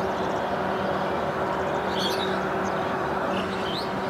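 Cessna Citation jet's twin TFE731 turbofans running at low power as it rolls along the runway, a steady rush with a low hum. Birds chirp briefly about two seconds in and near the end.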